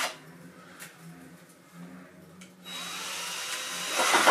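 Cordless drill spinning a makeshift spool on its chuck, winding in fishing line stripped off several reels at once. After a faint lull the drill starts up again a little under three seconds in and runs steadily, loudest near the end.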